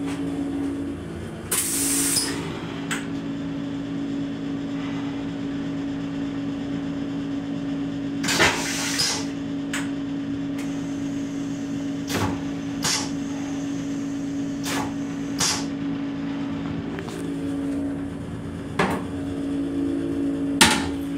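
Steady mechanical hum of the rail car's equipment in a small stainless-steel train restroom, with scattered knocks and clicks from fittings being handled. Near the end the plastic toilet lid is lowered and closes with a sharp clack.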